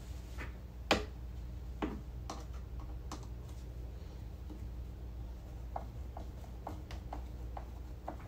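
Light clicks and taps of a screwdriver and a plastic TV stand leg being handled against the back of a flat-screen TV: one sharper knock about a second in, a few more scattered ones, then a quick run of small clicks near the end.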